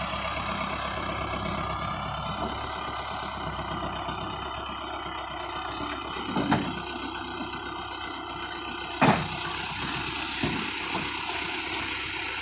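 Sonalika tractor's diesel engine running steadily while its hydraulic trolley is tipped up to unload soil. Two sharp thumps stand out, about six and a half and nine seconds in.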